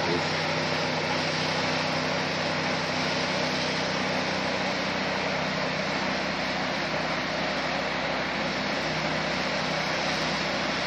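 Small engine of a hose-fed power sprayer running steadily at a constant speed, with the hiss of the spray.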